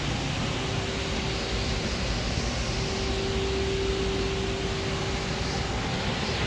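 Steady industrial plant noise, like ventilation or machinery running, with a single steady whine that comes in shortly after the start, is strongest in the middle and fades out near the end.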